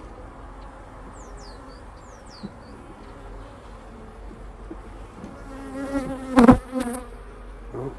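Honeybees buzzing steadily around an open hive. The buzz swells as a bee comes close, loudest about six and a half seconds in, then falls back.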